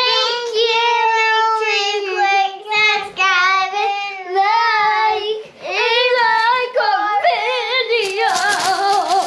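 A child singing in a high voice, long wavering held notes broken by short breaths.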